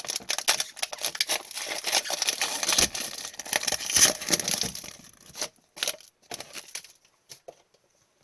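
A hockey trading card pack's wrapper being torn open and crinkled for about five seconds, then a few light clicks as the cards are handled.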